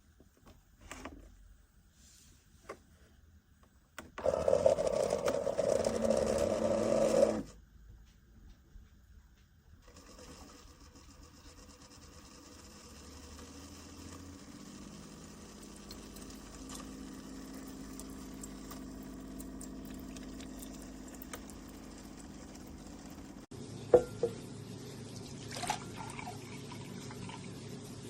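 Keurig single-serve coffee maker brewing a cup. A loud pumping burst comes about four seconds in and stops after a few seconds. Then a steady stream of liquid runs into the cup with a pump hum under it, growing slightly, with a couple of sharp clicks near the end.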